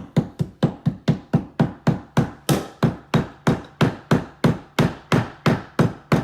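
A hammer rapidly tapping wood, about three to four even strikes a second. It is driving the wood packed into a stripped hinge screw hole flush with the door jamb.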